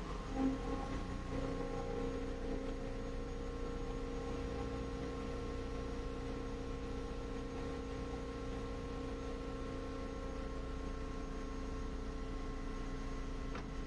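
Metal lathe running with its chuck spinning, a steady machine hum carrying a few fixed tones. There is a small knock about half a second in.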